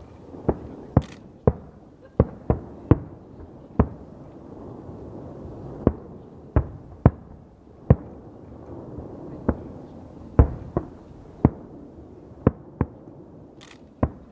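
Fireworks going off: a string of sharp single bangs at irregular intervals, about eighteen in all, over a continuous rumble of more distant explosions.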